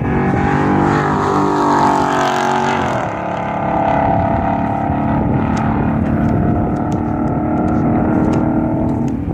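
Shelby Mustang's V8 engine under power on a race track, its pitch climbing, then dropping sharply about three seconds in, then holding a steady pitch.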